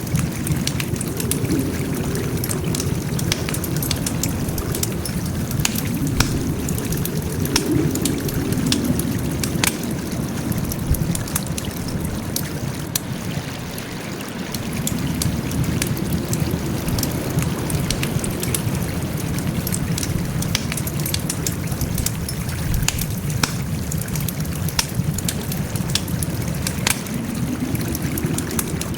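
Wood fire crackling, with frequent sharp pops and snaps over a low rumble that swells and fades every few seconds.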